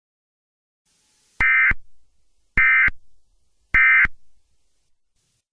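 Emergency Alert System SAME end-of-message data tones: three identical short, buzzy digital bursts about a second apart, signalling that the alert message has ended.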